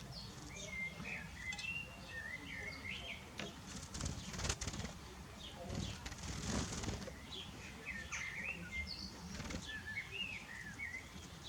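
A small bird twittering in short, wavering chirp phrases, with a flurry of wing flaps about halfway through. The twittering comes back near the end.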